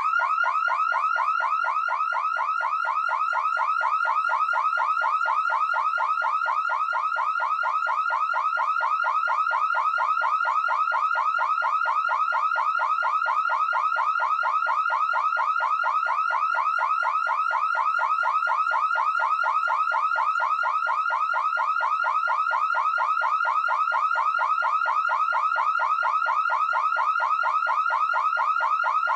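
Electronic alarm siren sounding continuously: a fast, unbroken train of short rising chirps repeating many times a second, steady in pitch and loudness throughout.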